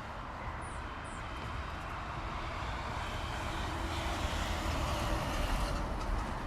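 City traffic ambience: a steady rumble and rush of distant traffic, with one passing engine that swells louder to a peak near the end and then fades.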